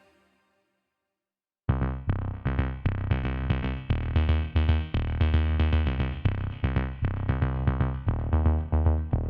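Background electronic music with a steady drum-machine beat and synthesizer bass, starting suddenly after about a second and a half of silence.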